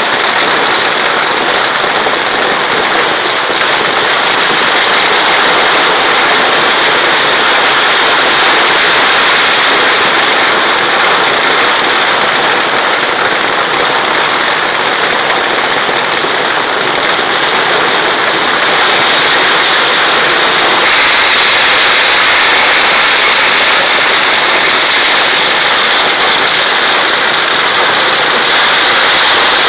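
A dense, unbroken barrage of firecrackers going off at ground level, the reports running together into one loud continuous crackle. It turns brighter and harsher about twenty seconds in.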